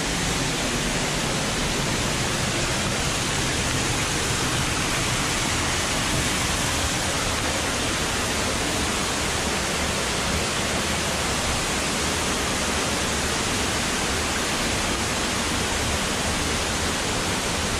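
Waterfall rushing steadily: an even, unbroken wash of water noise.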